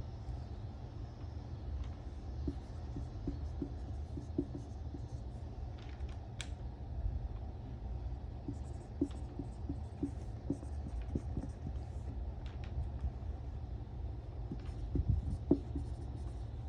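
Handwriting: small scratches and light taps of a pen or marker, with a few sharper clicks, over a steady low hum.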